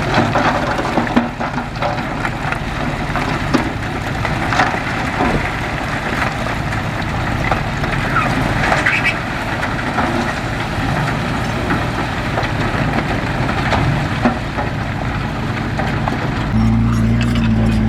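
Heavy diesel earthmoving machinery running, with scattered clanks and knocks. About a second and a half before the end a deeper engine note comes in louder.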